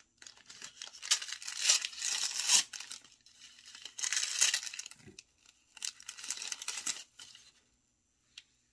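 Brown kraft-paper wrapping crinkling and tearing by hand as a candle is unwrapped, in three rustling bursts with short pauses between, and a light tick near the end.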